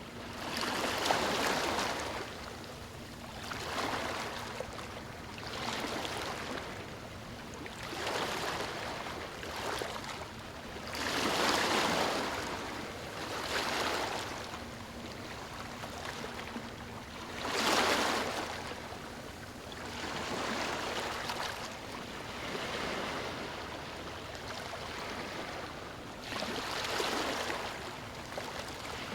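Small waves breaking and washing up a beach, the surf swelling and fading every two seconds or so, with a few larger waves louder than the rest.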